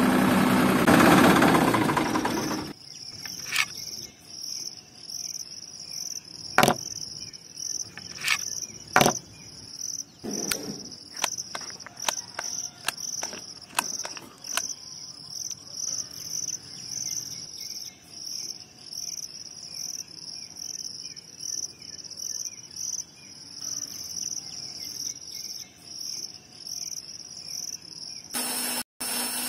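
A small electric toy motor runs with a steady hum for the first few seconds and cuts off suddenly. After that, insects chirp steadily in a rhythmic high pulse about twice a second, with scattered sharp clicks and taps from the handling of parts.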